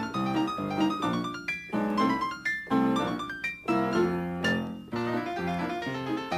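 Solo piano music: a lively tune of quick notes over a steady bass.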